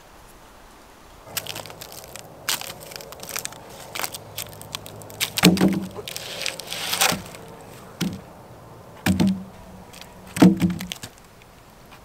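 Freshly sawn white oak planks being handled and laid down on a pile of logs: sharp wooden cracks and rustling, then several hollow wooden knocks as the boards strike the logs and each other, with a scrape as one slides into place.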